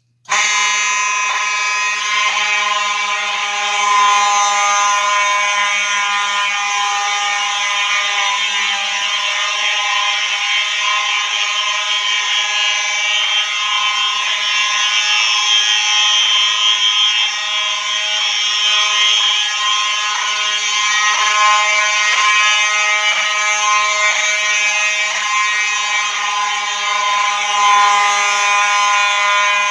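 Several fire alarm horns sounding together on a test run, a loud steady buzzing blare of many overlapping tones that starts abruptly as they are switched on. A faint regular ticking runs through it.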